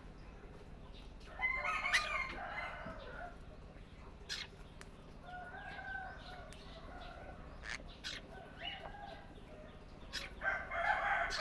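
Birds calling: two long, loud calls, one about a second and a half in and one near the end, with shorter calls and a few sharp clicks between them.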